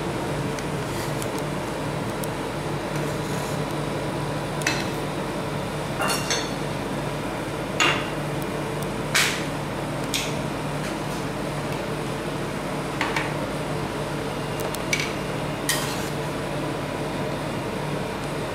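Steel spatulas, a ceramic plate and tongs knocking and clinking on the frozen steel pan of a rolled-ice-cream cold plate: about ten sharp knocks spread out, the loudest two near the middle. A steady mechanical hum runs underneath.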